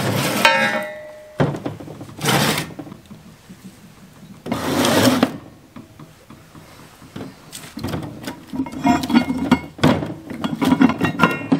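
Heavy steel parts of a Titan 36-inch backhoe thumb clanking and scraping as they are set down and shifted on a work table: a ringing metal clank at the start, a few separate scrapes and knocks, then a run of knocks near the end.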